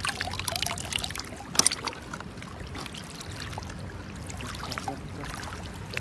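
Shallow seawater splashing and trickling as a gloved hand lifts a sea snail out of the water and handles it, with scattered small splashes and one sharp, louder splash about a second and a half in.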